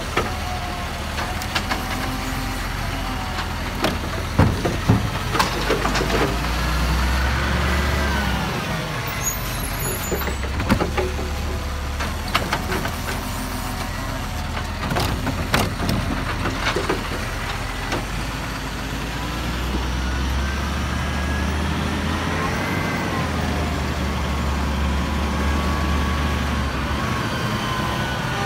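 Side-loading garbage truck running while its hydraulic arm lifts and tips a wheelie bin: the engine swells and a whine rises and falls twice as the arm works, with sharp clunks and rattles from the bin.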